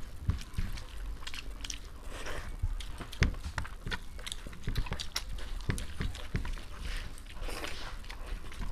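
Close-miked sounds of people eating rice by hand: chewing and lip smacks mixed with the squish of fingers working the rice on the plates, in many short, irregular clicks.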